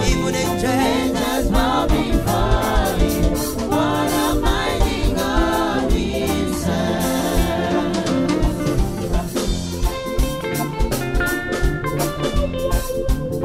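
Live band playing reggae gospel music: group singing over drum kit and electric guitar, with the voices dropping out about halfway while the band plays on.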